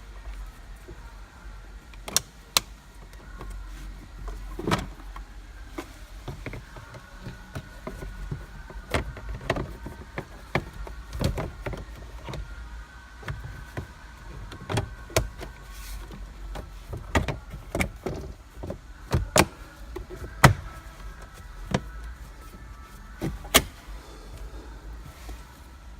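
Irregular clicks and knocks of plastic interior parts being handled, with faint drawn-out squeaks or scraping between them, as the glove box and cabin filter housing are worked on.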